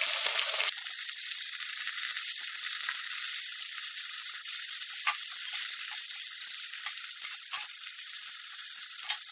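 Catla fish pieces frying in hot mustard oil in a kadai: a steady sizzle, louder in the first moment, with a few sharp crackling pops scattered through.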